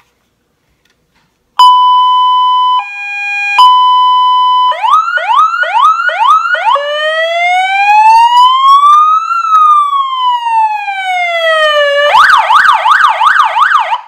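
MATCC 12 V 100 W car siren speaker, loud, stepped through its tones from the handheld controller: starting about a second and a half in, a steady horn tone broken briefly by a lower tone, then a run of quick rising whoops, then one slow wail up and back down, then a rapid up-and-down warble that cuts off at the end.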